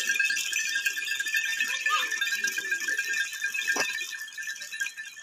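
Many small bells on a walking goat herd jingling in a dense, continuous shimmer that fades toward the end as the herd moves off.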